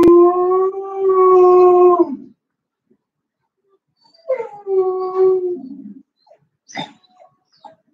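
A puppy howling: one long, steady howl of about two seconds, then a shorter howl starting about four seconds in, followed by a brief sharp sound near the end.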